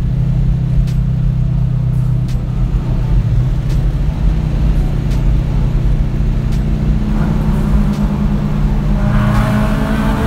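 Car engine running at a steady pace, a low even drone.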